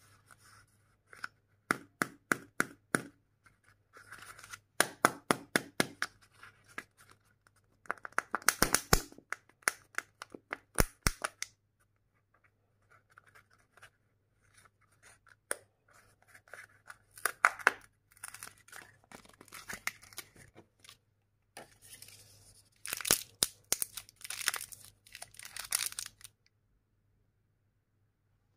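Foil wrapper of a Kinder Joy egg crinkling and tearing as it is peeled off by hand, then the plastic egg being handled and prised open. This comes in several bursts of rapid crackles with short quiet gaps between them.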